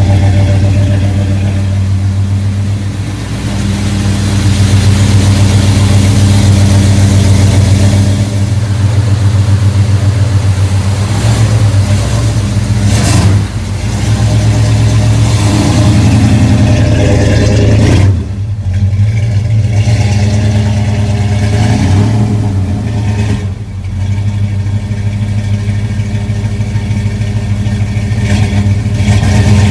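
Rebuilt 454 big-block V8 of a 1988 Chevrolet Suburban running loudly, its revs rising and falling a few times with short breaks in between.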